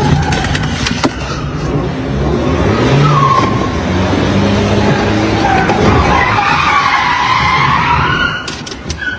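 Car tyres squealing in a skid over engine noise, the squeal wavering up and down in pitch, with a few sharp clicks near the end as it dies down.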